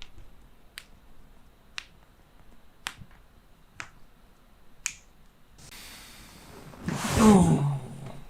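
A run of short, sharp clicks during a chiropractic adjustment, six in all, about one a second. Near the end a person lets out an "oh" that falls in pitch, the loudest sound.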